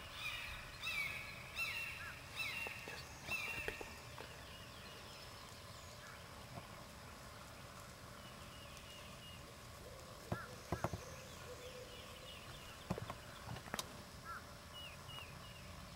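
Faint calls of wild turkeys over quiet field ambience, with a run of short falling chirps in the first few seconds. There are brief sharp peaks about ten seconds in and again near fourteen seconds.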